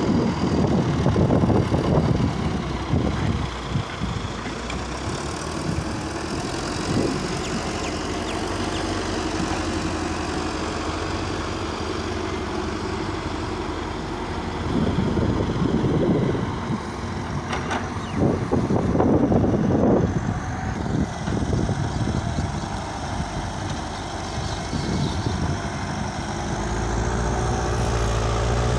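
Diesel engines of a Caterpillar 950 wheel loader and a Volvo EW130 wheeled excavator running as they move soil. The engines rise in loud surges near the start, about halfway through and again a few seconds later, and a deeper engine note builds and holds near the end.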